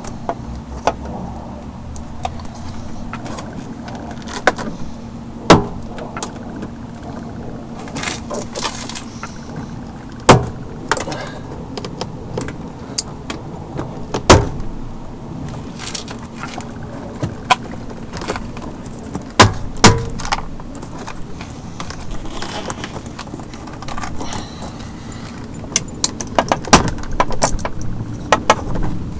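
Scattered clicks, taps and knocks of plastic and metal from hand work on a BMW E46 inner door panel, with a few sharp knocks louder than the rest and a flurry of quick clicks near the end. A steady low hum runs underneath.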